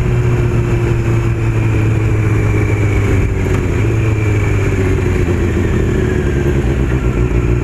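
Honda CBR600 F4 inline-four motorcycle engine running while riding, its note slowly falling in pitch as the bike eases off.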